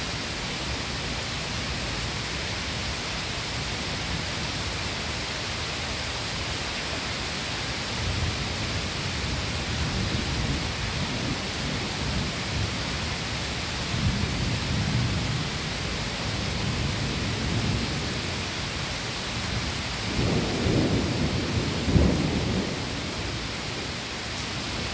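Steady rain falling during a thunderstorm, with rolls of thunder rumbling low several times through the second half and a sharper, louder clap near the end.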